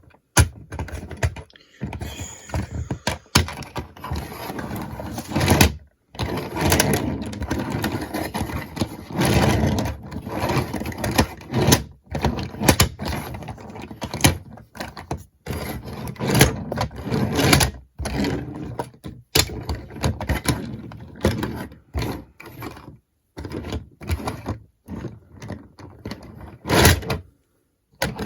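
Small plastic toy skateboards with figures on them rolling and clattering over a hard surface, with a jumble of knocks, thunks and clicks as they are pushed around and handled. Several times the sound cuts off completely for a moment.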